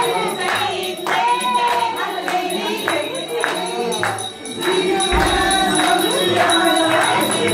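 Festive song sung by a group, with rhythmic hand-clapping and jingling in time with the beat.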